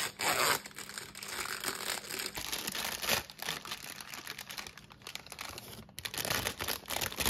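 Crinkly plastic cookie-dough package rustling and crackling in irregular bursts as it is torn open and handled and the dough tray is slid out.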